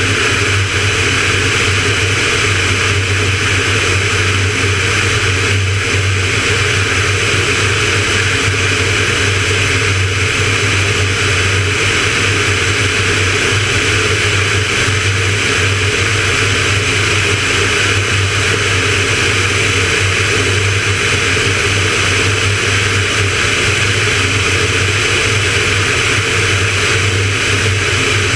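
Van's RV-9A light single-engine propeller plane in cruise flight: steady engine and propeller drone mixed with rushing airflow on the outside of the plane, unchanging throughout.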